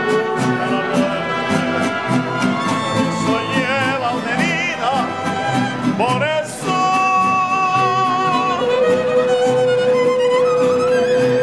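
Live mariachi band playing between sung lines: violins over strummed vihuela and guitars with guitarrón bass. In the second half the melody settles into long held notes.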